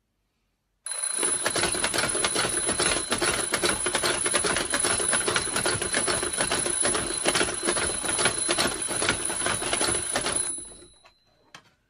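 Twin-bell alarm clock ringing in a loud, rapid metallic clatter, together with a motor-driven fake hand slapping a face over and over. It starts abruptly about a second in and stops just before the end.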